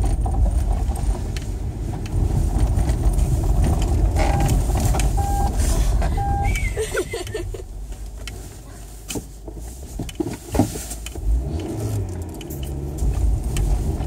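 Car driving over snow-packed roads, heard from inside the cabin: a steady low rumble of engine and tyres that eases for a few seconds past the middle. A few short tones sound near the middle.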